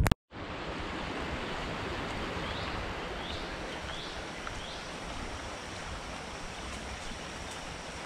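Steady rush of a flowing creek, with a bird giving four short rising chirps a few seconds in.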